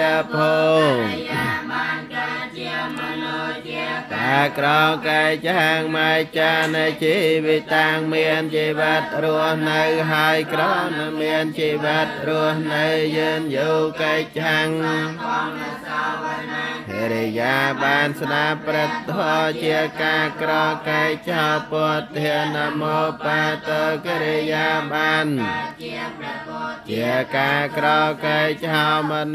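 Buddhist chanting: voices reciting in a steady, held chant, with each phrase ending in a falling pitch.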